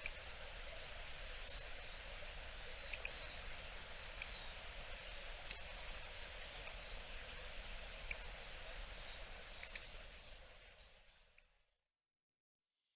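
Hawfinch giving short, sharp, high-pitched 'tic' calls, one about every second and a half, some in quick pairs. A faint background hiss fades out about ten seconds in, after which one more call is heard.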